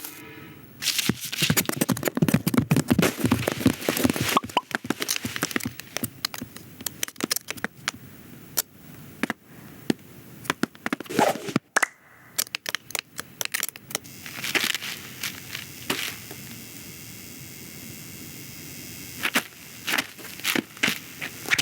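Dense crackling and snapping for the first few seconds, then scattered sharp cracks over a faint steady hiss, with a few more cracks near the end.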